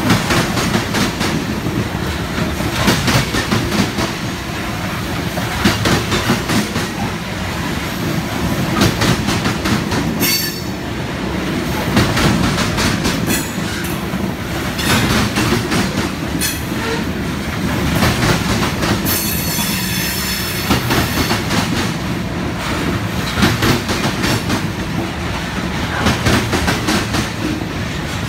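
Freight train of covered hopper cars rolling past close by: a steady rumble with the clickety-clack of wheels over rail joints. Brief high-pitched wheel squeals come about ten seconds in and again around twenty seconds in.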